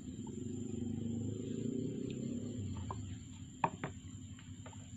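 Fishing rods and gear knocking on the edge of a small boat: a low rumble of handling, then two sharp knocks about three and a half seconds in and a few lighter taps after. A steady high insect whine runs behind.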